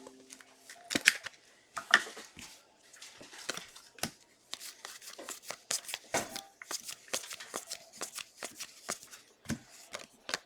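Football trading cards being handled and flipped through, a quick, irregular run of sharp rustles and flicks as cards slide against each other, loudest about one and two seconds in.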